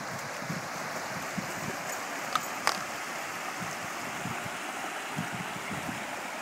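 Shallow stream rushing over rocks: a steady flowing-water sound, with two short sharp clicks about halfway through.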